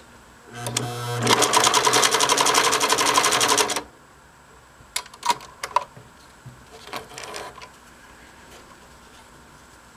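Singer 534 electric sewing machine stitching through canvas in a short test run. It starts about half a second in, stitches rapidly and evenly for about three seconds, then stops. The machine has freshly fitted, retimed hook gears and seems to work okay. A few light clicks and taps follow.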